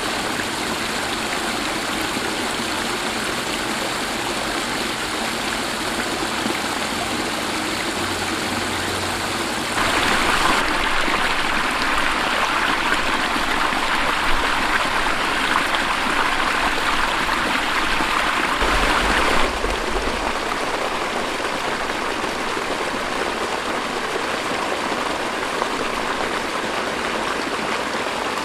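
Newly built pondless waterfall running: water splashing down a rock stream into gravel with a steady rush. It gets louder for about ten seconds in the middle, then settles back.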